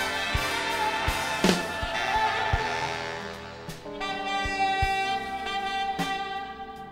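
Instrumental background music with a steady drum beat and held melodic notes.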